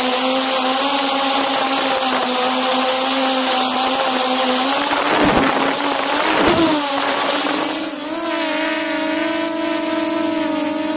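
DJI Mavic 2 Pro quadcopter's propellers and motors humming steadily in flight, heard close up, with a brief rush of wind noise about five to seven seconds in. From about eight seconds the hum's pitch rises slightly and wavers.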